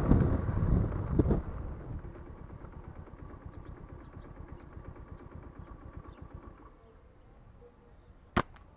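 A motor vehicle's engine runs with a low pulse and fades away over several seconds, after a burst of rushing noise at the start. Near the end comes a single sharp snap: a slingshot being shot.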